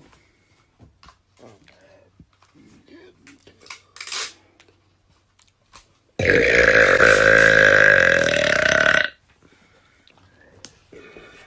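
A woman's long, loud burp lasting about three seconds, starting about six seconds in, holding a fairly steady pitch and cutting off suddenly. Before it, only a few faint clicks and small sounds.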